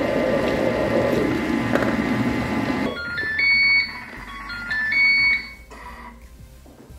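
Kitchen robot's motor churning a liquid mixture, stopping about three seconds in; then the machine plays its end-of-program signal, a short tune of electronic beeps stepping up in pitch, twice.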